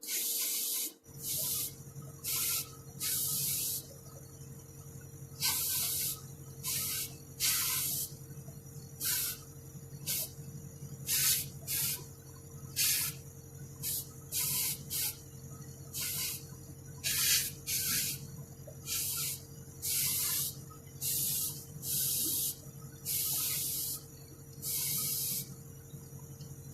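Spray paint hissing in many short bursts, roughly one a second with some held longer, as small toy wheel hubs are painted. A steady low motor hum runs underneath from about a second in.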